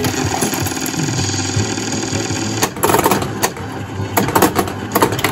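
1994 Bally World Cup Soccer pinball machine playing its electronic sound effects and music after a ball drain, with a quick run of sharp mechanical clicks from about halfway through.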